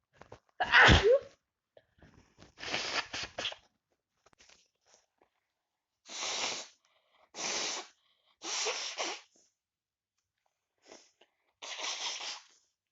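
A person with a heavy cold sneezing: one loud, voiced sneeze about a second in, then five shorter, breathy bursts.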